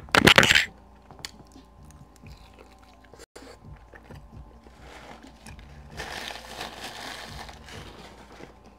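A bite into a seasoned barbecue rib, loud and sudden just at the start, followed by softer chewing and mouth sounds. There is a longer, noisier stretch of chewing about six seconds in.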